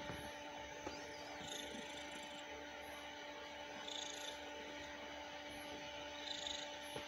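Long-haired tabby cat purring steadily while its belly and chin are rubbed.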